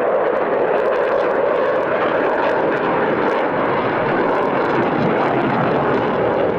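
Military fighter jet flying past, its jet engine noise loud and steady after building up just before.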